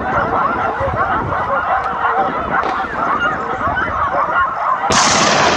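A pack of hunting dogs baying and yelping at a wild boar, many voices overlapping without a break. About five seconds in, a single gunshot cracks out and its echo trails off.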